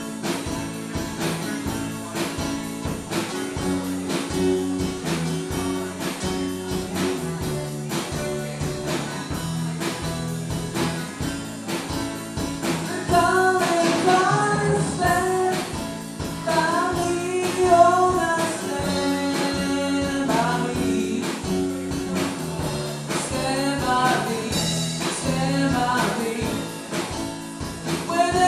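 Small live band with electric guitar, acoustic guitar, bass and drum kit playing a cover of the soul ballad, with a steady beat and a repeating bass line. The band plays without vocals at first, and a singing voice comes in about halfway through and carries on in phrases.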